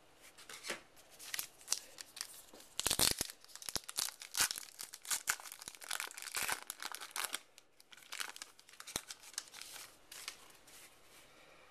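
A trading card pack's wrapper being torn open and crinkled by hand, a run of close crackles and rustles that is busiest through the middle.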